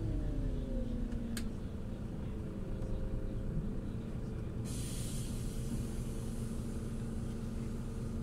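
Irisbus Crossway 12M bus running, its engine note falling in pitch during the first second and then holding steady. A single click comes about a second and a half in, and a short hiss of air comes about halfway through.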